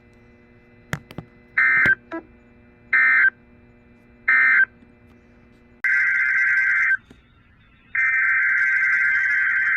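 NOAA Weather Radio SAME digital data bursts: after a couple of clicks, three short raspy bursts about a second apart, the end-of-message code closing one weekly test, then two longer bursts near the end, the header that opens the next station's alert.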